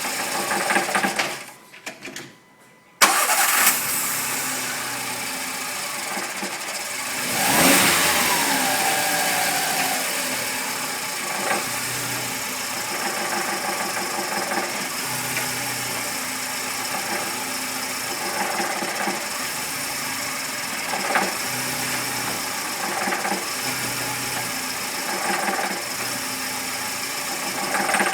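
Volkswagen Gol G5 engine running with the abnormal chirping engine noise ('grilando') that has been there since the car was new and has grown worse. It drops out briefly and comes back abruptly about three seconds in, and rises and falls in pitch once about eight seconds in.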